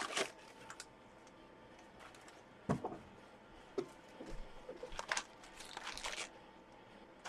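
Wrapping material crinkling and rustling in short spells as a parcel is unwrapped, with a dull knock about three seconds in.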